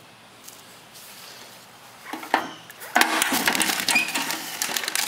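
Items and their plastic wrappers being handled: a few sharp clicks about two seconds in, then a loud stretch of crinkling and clicking.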